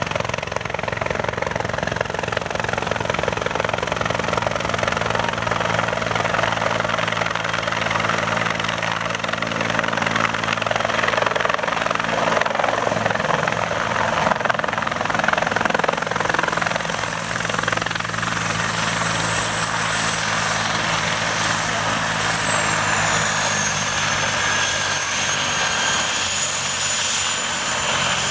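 Bell 412 helicopter's twin turbines and four-bladed main rotor, hovering low and setting down on its skids: a steady rotor thrum under a high turbine whine. The whine drops slightly in pitch about two-thirds of the way through.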